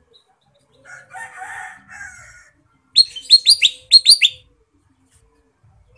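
Kutilang emas bulbul calling: a harsh, scratchy chatter about a second in, then a rapid run of about eight sharp, downward-slurred whistled notes, the loudest part of the call.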